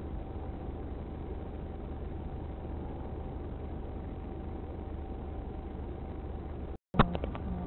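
Steady low hum of a stopped car's idling engine heard from inside the cabin through a dashcam, with a faint steady tone above it. Near the end the sound drops out for a moment, then a single sharp knock comes, followed by a few lighter clicks.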